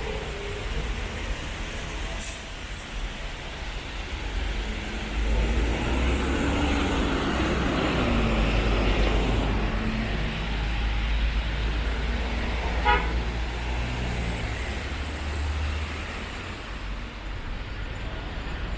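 Road traffic going by, with a heavy vehicle's low rumble swelling through the middle and an engine note falling in pitch as it passes. A short horn toot sounds about two-thirds of the way in.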